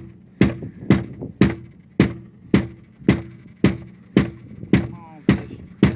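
Background music with a steady drum beat, about two beats a second, over a sustained bass line.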